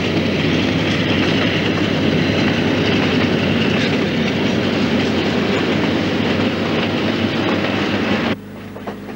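The Ghan passenger train running along the track, a loud, steady noise of the moving train. About eight seconds in it cuts off abruptly, leaving a quieter steady hum.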